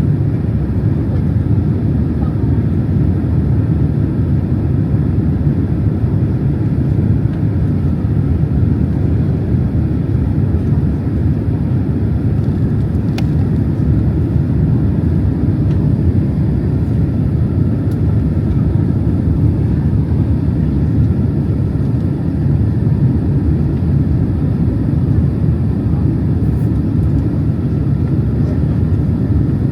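Steady cabin noise inside a Boeing 767-300 airliner in flight: a loud, even rumble of engines and airflow that stays constant throughout, with a faint click about 13 seconds in.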